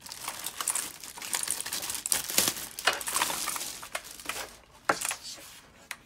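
Plastic packaging crinkling and rustling as it is handled, mixed with scattered sharp clicks and light knocks.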